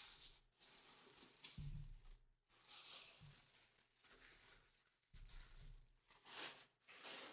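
Faint rustling and crinkling of packaging in several short bursts, with a couple of soft low bumps, as a full-size football helmet is handled.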